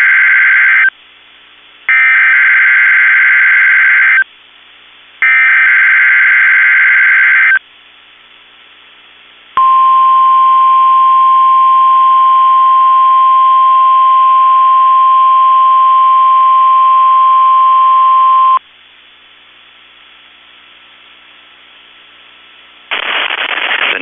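NOAA Weather Radio Emergency Alert System test broadcast: the end of one screeching digital SAME header burst and two more, each about two seconds long with a second's pause between, then a steady 1050 Hz warning alert tone for about nine seconds. After a few seconds of radio hiss a voice starts near the end.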